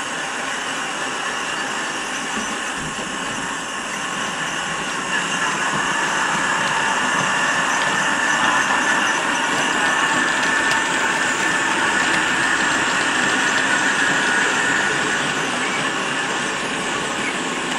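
Model freight train running past on the layout: a steady rumble and rattle of wagon wheels on track that grows louder about five seconds in and eases off near the end.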